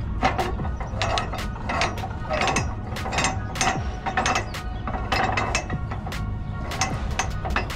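Ratchet strap being cranked tight: clicks from the ratchet's pawl repeating irregularly, a few a second, over a steady low hum.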